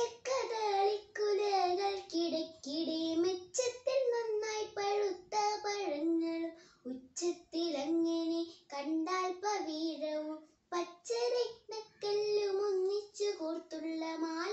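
A young girl singing a song solo, without accompaniment, in phrases of held and gliding notes with short breaths between them.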